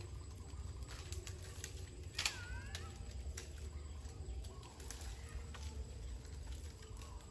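Outdoor rural ambience: a steady low rumble with scattered faint clicks and faint bird calls, and one sharper chirping call about two seconds in.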